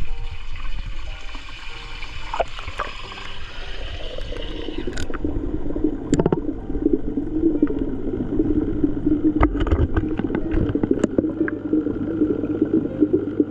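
Underwater water ambience: a hissing wash that gives way about four seconds in to a muffled, continuous bubbling, with scattered sharp clicks.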